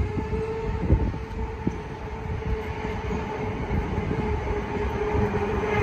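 Tram running along street rails close by: a steady whine over a low rumble of wheels on the track.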